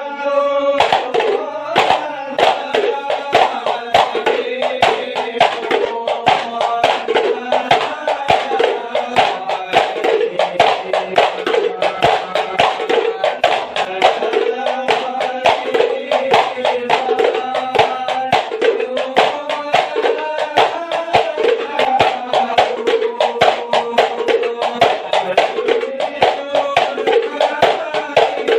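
Hadrah Ishari ensemble of hand-played terbang frame drums beating a fast, steady rhythm, with men's voices singing a devotional song together over the drums.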